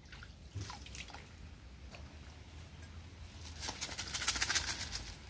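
Water sloshing and dripping as a plastic mesh eel trap is moved and lifted in shallow water: scattered small splashes, then a denser run of crackling splashes about three and a half seconds in, the loudest part.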